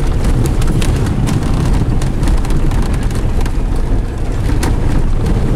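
Inside the cabin of a 2016 Chevy Tahoe driving hard through a large puddle on a gravel road: water and mud splash up against the windshield and body. Heavy steady road rumble follows, with many sharp ticks of debris striking the truck.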